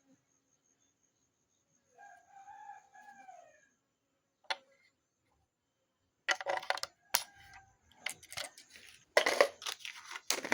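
A rooster crows faintly about two seconds in, one pitched call with a short break in it. From about six seconds in there is a busy run of clicks, clatter and rustling as small objects are handled.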